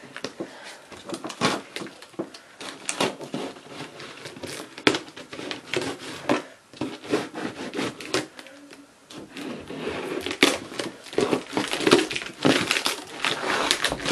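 Fingernails scratching and picking at plastic packing tape on a cardboard box, trying to lift and tear it, giving irregular crinkling, scraping and small tearing noises that grow busier and louder in the last few seconds.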